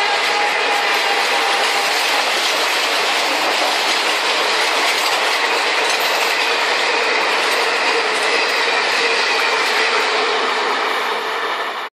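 Battery-powered toy train running fast on plastic track, a steady dense rattle of its wheels and motor. A horn tone from the toy fades out in the first two seconds, and the rattle drops away and cuts off at the very end.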